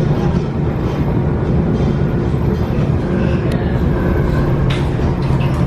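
Replica Birney electric streetcar running along its track, heard from inside the car: a steady low rumble with a faint steady hum over it.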